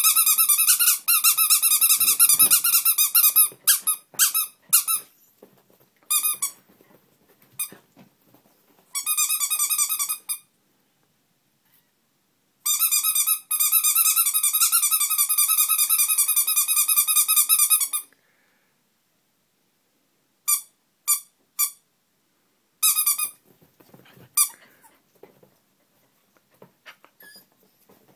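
Tiny rubber duck squeak toy squeezed by hand, giving long runs of a fast, fluttering high squeak broken by pauses, then a few short single squeaks near the end.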